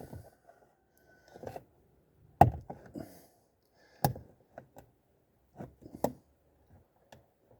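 Lada Vesta door handle being pulled and let go, clacking sharply three times with smaller clicks and rattles between. The handles are the ones that creak and that the owner sets out to quiet.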